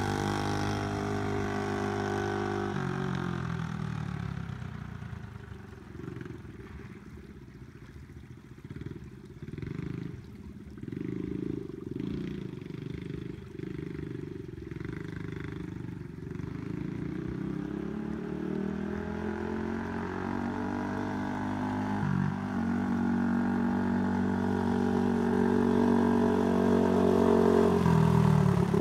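Small single-cylinder 107cc Honda-style four-stroke engine on a homemade trike, running and revving. It fades to a faint note in the middle as the trike moves off, then grows louder near the end as it comes back close.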